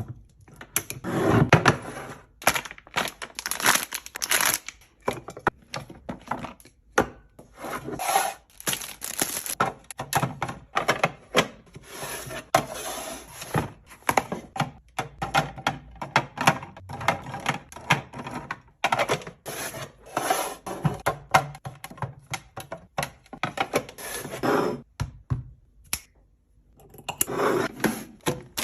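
Restocking ASMR handling sounds: a dense run of clicks and knocks as items are picked up and set down, a few a second, with rubbing and rustling between them and a short pause near the end.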